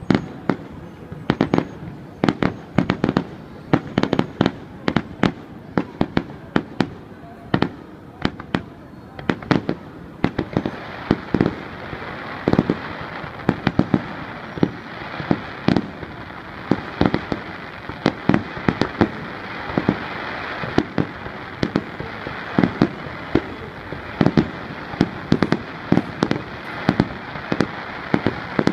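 Aerial fireworks bursting in a rapid, irregular barrage of sharp bangs, several a second. About ten seconds in, a steady hiss rises underneath the bangs.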